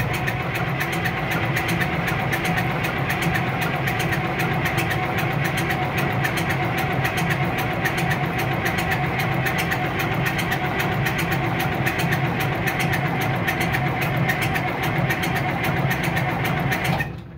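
Case 2470 tractor's diesel engine being cranked over by the starter for about 17 seconds with a fast, even pulsing, not catching and running on its own; the cranking stops abruptly near the end.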